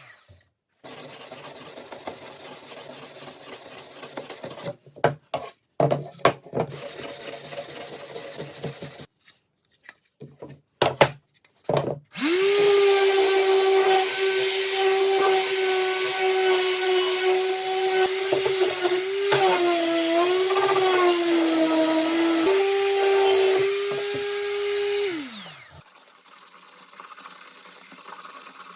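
Electric power tool working wood: its motor runs with a loud steady whine, sags in pitch twice as it takes load, recovers, and then spins down to a stop. Before it come several short stretches of quieter rubbing and clicking on wood.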